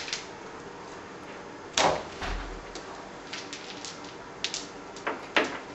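Wooden venetian blind being let down from its head rail: a string of separate clacks and knocks from the slats and mechanism, the loudest about two seconds in and another near the end.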